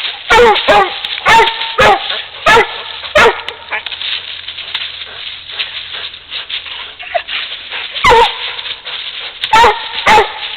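Coonhounds barking at a raccoon they have caught. There is a run of loud, sharp barks over the first three seconds, a quieter, busier stretch in the middle, then more loud barks near the end.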